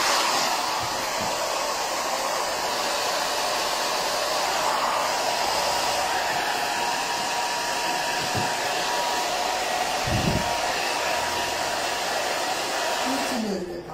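Handheld hot-air dryer blowing steadily with a thin motor whine, drying wet acrylic paint on a canvas. It cuts off near the end.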